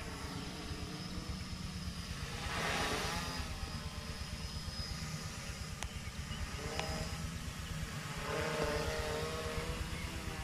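Homemade F450 quadcopter's brushless motors and propellers droning in flight. The pitched hum swells twice, about three seconds in and again near the end. A low, choppy rumble of wind on the microphone runs under it.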